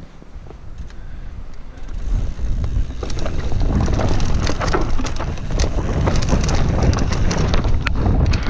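Wind buffeting the camera microphone and a Commencal Meta V4 mountain bike rattling over a rough trail at speed. The rumble grows louder about two seconds in as the bike picks up pace, and it is followed by many sharp knocks as the bike and tyres hit bumps.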